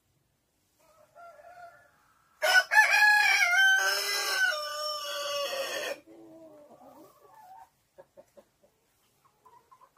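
A rooster crowing once, a loud call of about three and a half seconds with stepped changes in pitch, starting about two and a half seconds in. Softer hen clucks come just before and after it.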